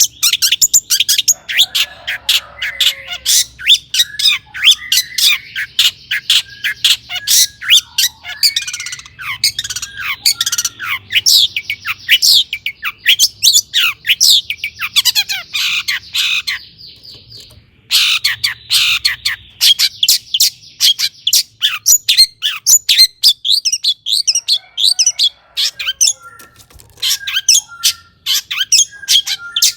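Long-tailed shrike (cendet) singing a rapid, harsh, varied song of short sharp chirps and squawks, with one fast trill and a brief pause about two-thirds of the way through.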